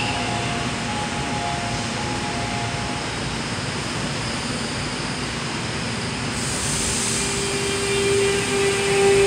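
Seoul Metro Line 7 subway train standing at the platform with its equipment running. Near the end its GTO-VVVF traction inverter starts up with a steady whine that begins to rise in pitch as the train pulls away.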